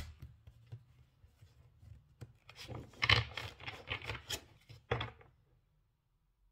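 A deck of oracle cards being shuffled by hand: cards sliding and rubbing against each other in short flurries, busiest from about three to five seconds in, then stopping.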